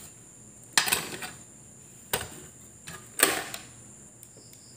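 Handling knocks and clicks of metal parts and tools on an opened air-conditioner inverter unit: three sharp knocks about a second apart, the loudest a little after three seconds in, with lighter ticks between, over a faint steady high whine.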